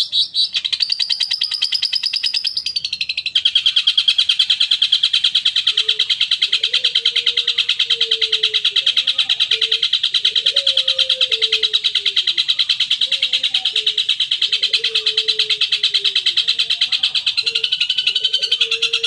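Long-tailed shrike (cendet) chattering: a fast, unbroken rattle of rapid high notes, louder from about three seconds in. A lower, wavering call joins about six seconds in.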